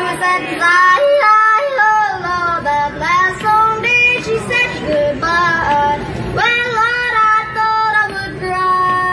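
A pop song with a high female lead vocal, played loud over a PA speaker; the voice holds long, wavering notes over the backing.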